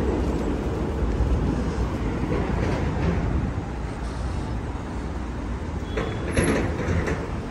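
Steady low rumble of a large vehicle, slowly fading, with a brief rattling clatter about six seconds in.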